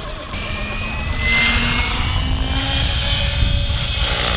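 Radio-controlled model helicopter flying, its motor and rotors giving a steady high whine that rises slightly in pitch, over a low rumble.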